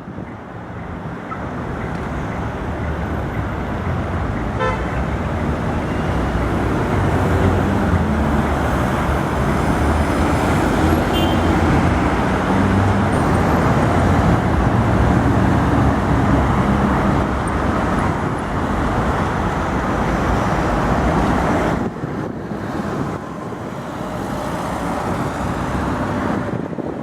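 A Tatra T3-type tram running close by over the square's tracks. Its rumble builds over several seconds, holds, then drops near the end. A brief toot sounds about five seconds in.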